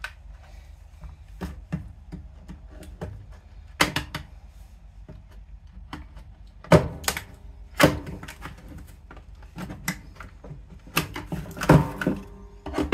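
Scattered clicks and taps of a screwdriver and plastic parts being handled on a wooden workbench while an oven's electronic control panel is taken apart, with a few louder knocks that ring briefly.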